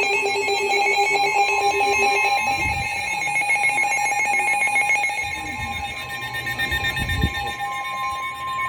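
Emergency alert tones: rapid pulsing electronic beeps over a steady single tone near 1 kHz, the NOAA Weather Radio warning alarm tone that comes before a warning is read. The pulsing beeps fade near the end while the steady tone carries on.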